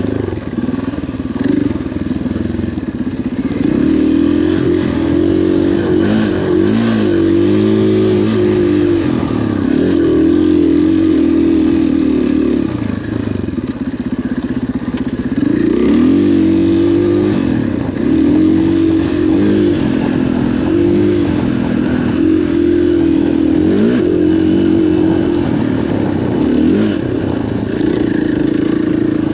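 KTM 500 XCF-W single-cylinder four-stroke dirt bike engine under way, its pitch rising and falling again and again as the throttle is opened and rolled off, with a brief lull about halfway through.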